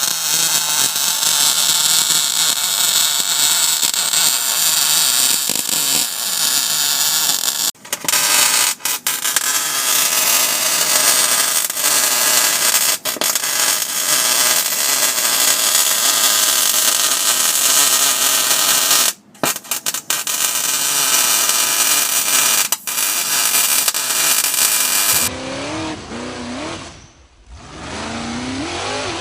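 Loud, steady hiss of metalworking power tools at work on a rusted Jeep Wrangler TJ frame, broken by several sudden cuts. A few seconds before the end it gives way to a different sound whose pitch rises and falls.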